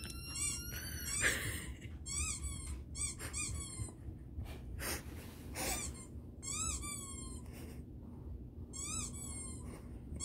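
Dog whining in a string of short, high-pitched squeals, each rising and then falling in pitch, after a longer rising whine at the start.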